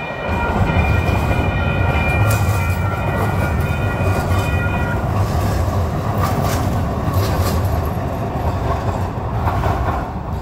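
A rail vehicle, most likely a light rail train, passing close by with a heavy low rumble. A high ringing squeal from the wheels or motors sounds between about one and five seconds in, and scattered clacks come over the rails.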